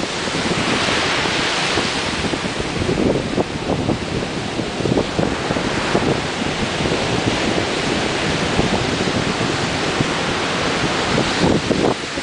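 Ocean surf breaking and washing, with a swell of surging hiss about a second in, and wind buffeting the microphone in rough low rumbles throughout.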